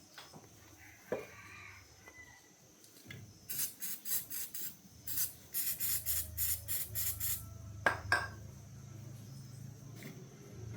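Quick rasping strokes, about four to five a second in two runs, then two sharp knocks; a low hum comes in midway and carries on.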